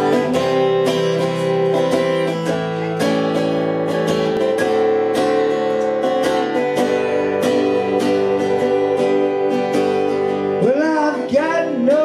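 Acoustic guitar strumming chords for a song's introduction. A man's singing voice comes in near the end.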